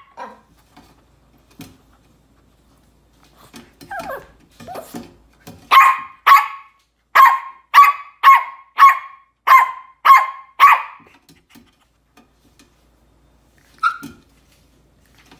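Yorkshire terrier puppy barking at an opened food can in high, sharp yaps. After a few softer sounds, it lets out a quick run of about ten barks, roughly two a second, then one more short yap near the end.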